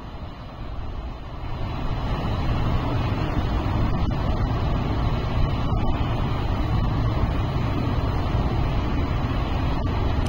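Steady low rumble of a road vehicle or street traffic, growing louder over the first two seconds and then holding steady.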